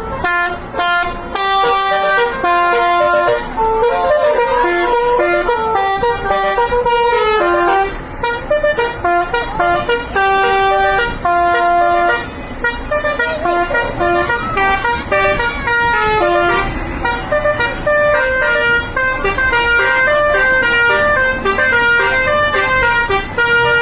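A tour bus's Basuri telolet horn, a set of multi-trumpet air horns, playing a fast melody of short stepping notes, with a few brief breaks.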